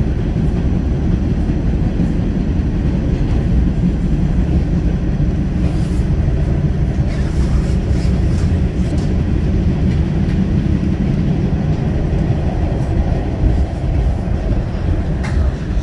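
New York City subway car of a Q train running at speed, heard from inside the car: a steady, loud low rumble of wheels on rails, with a few sharp clicks scattered through it.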